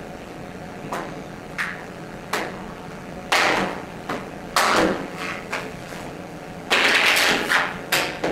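Irregular knocks and short rustling bursts of small objects being picked up, handled and set down on a table, over a steady background hiss.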